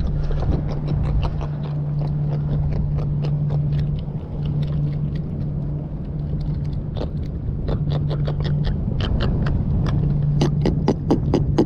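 A freshly caught jack grunting and clicking as it is held out of the water, a string of short crackling clicks over a steady low hum that breaks off a few times; the clicks come thickest near the end.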